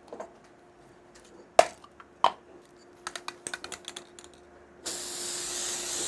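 A couple of sharp knocks, then a quick run of clicks about three seconds in. Then the steady hiss of Dry-Lon PTFE dry lubricant spraying from its aerosol can, starting about five seconds in.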